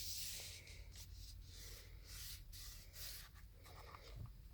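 Faint rubbing and scraping with a few light clicks: hands handling things close to the microphone.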